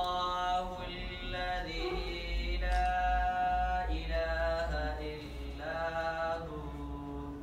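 A single voice singing a slow melody, each phrase held on long sustained notes with small steps in pitch between them.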